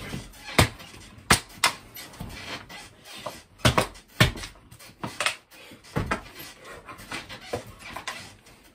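A person thrashing about on a bed: irregular thumps and knocks with rustling of the bedding, a handful of them sharp and loud.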